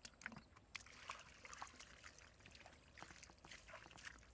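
Faint, irregular splashing and sloshing of shallow muddy water, a string of short splashes, as feet wade and hands grope through it.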